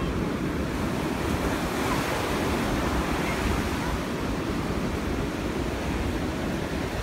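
Ocean surf breaking and washing up a sandy beach, a steady rush of waves, with wind buffeting the microphone.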